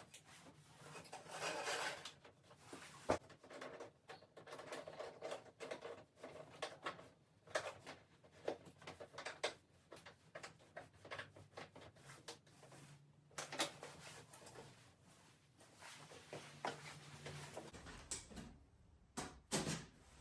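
Faint, irregular clicks and knocks of hard parts being handled and fitted together during assembly.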